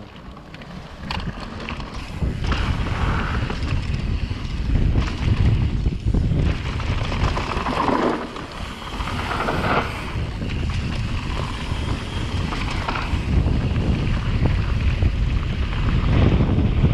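Wind buffeting an action camera's microphone as a mountain bike descends a dirt and gravel trail at speed, with a low, uneven rumble of tyres and the bike over the rough ground.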